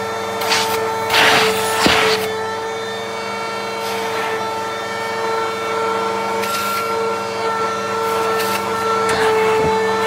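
Vacuum cleaner running with a steady motor whine, its hose nozzle pressed and moved over a dusty round filter; short rushes of air come as the nozzle shifts on the filter, mostly one to two seconds in.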